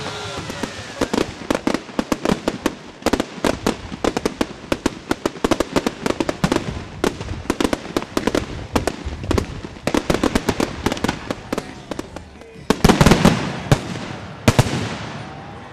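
Fireworks going off: a rapid run of sharp crackling bangs for most of the stretch, then two bigger, louder bursts near the end that die away.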